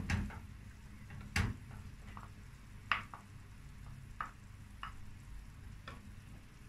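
Wooden spatula tapping and scraping against a bowl and a frying pan while beaten egg is spread over chard: scattered light taps, the loudest about a second and a half in.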